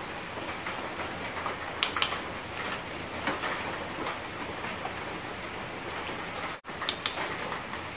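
Metal spoon clinking against a cooking pot while stirring, a couple of sharp taps about two seconds in and again near the end, over a steady hiss.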